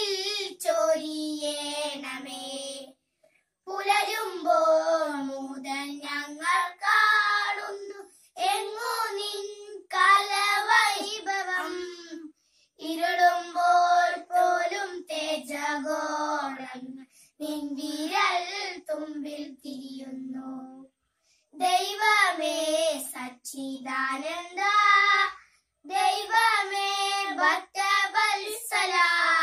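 Two young girls singing a prayer song together, unaccompanied, in phrases of a few seconds with short pauses between them.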